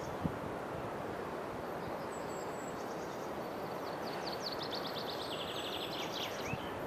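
Steady outdoor background noise with a small bird singing high, fast trills about halfway through.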